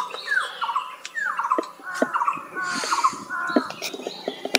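A bird calling repeatedly in short notes that fall in pitch, about half a dozen times, over scattered light clicks and rustles.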